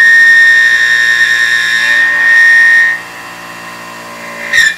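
Carbide end mill cutting aluminium on a CNC mill, giving off a loud, steady, high-pitched squeal that drops away about three seconds in to a quieter machining hum. A short, sharp squeal comes near the end.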